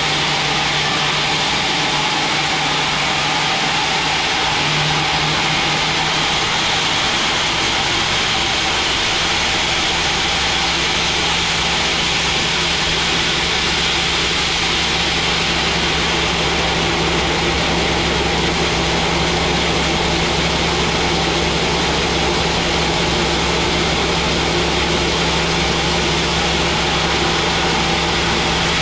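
Large band sawmill running steadily, its blade resawing a thick mahogany log into boards, with a deeper hum coming in about five or six seconds in.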